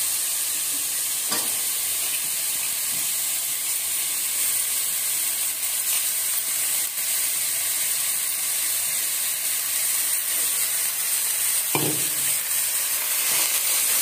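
Raw mutton pieces sizzling in hot oil in an aluminium pot, a steady frying hiss, with a ladle stirring them near the end.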